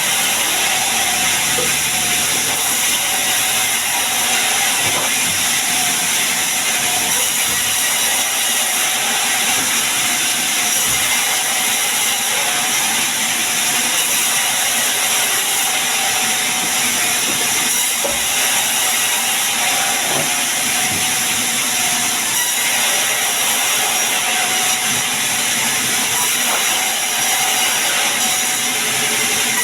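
Sawmill saw cutting lengthwise through a sengon log: a steady, bright, hissing cutting noise that holds without a break.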